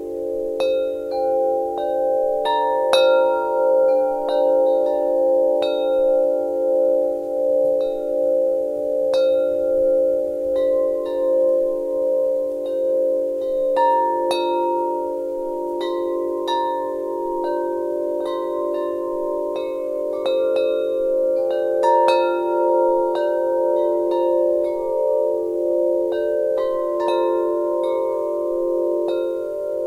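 Wind chimes ringing, struck irregularly about once or twice a second. Their long tones overlap and ring on, pulsing as they sustain.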